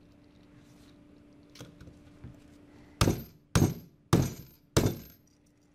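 Four hammer blows on the steel rivet-applicator tooling, about half a second apart, each a sharp metallic strike with a short bright ring. Faint handling clicks before them.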